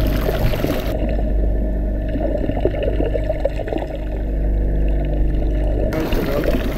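Muffled underwater sound picked up by a camera dunked below the surface on a pole: a loud, steady low rush of water moving around the housing, with wavering tones over it. From about a second in until near the end it is dull, the high end gone.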